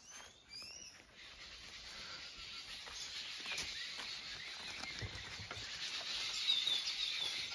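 Wild birds chirping: a few quick chirps about half a second in, then a run of repeated high chirps near the end, over a steady high hiss of rural outdoor background.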